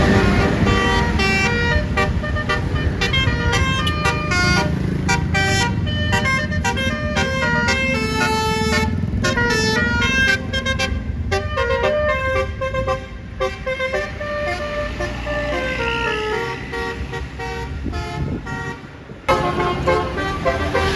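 A bus's Basuri telolet air horn playing a fast tune of short stepped notes over the rumble of the bus engine. The tune dips and resumes abruptly near the end.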